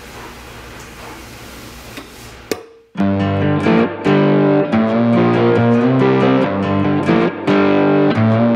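A bench-mounted buffing wheel spins with a steady whir as a leather boot's sole edge is held against it. It cuts off about two and a half seconds in, and loud guitar music starts about three seconds in.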